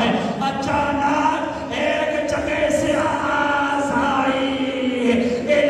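A man chanting a lament in long, wavering held notes through a microphone, in the sung style of the masaib recitation that closes a Muharram majlis.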